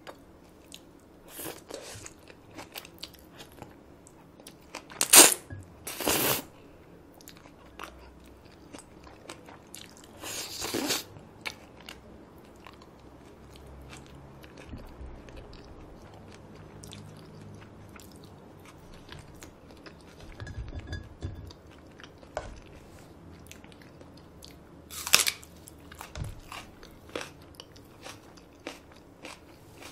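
Close-miked eating sounds: Paldo bibimmyeon cold spicy noodles being chewed, with a few loud, short slurps or bites standing out about five, six, ten and twenty-five seconds in.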